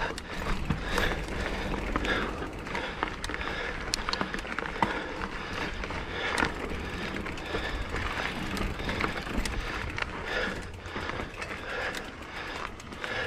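Mountain bike riding over a rocky trail: tyres crunching over rock and the bike rattling, with many short sharp knocks and clicks from impacts.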